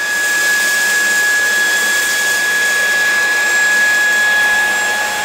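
Lacidoll VC03 cordless stick vacuum running on high speed, a steady whine over a rush of air, as its floor head sucks up scattered oats from a wooden floor.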